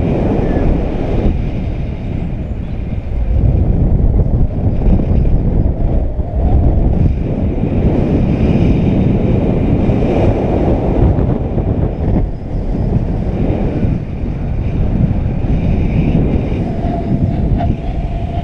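Airflow buffeting a GoPro camera's microphone in paragliding flight: a loud, fluctuating rumble of wind noise. A steady mid-pitched tone joins in near the end.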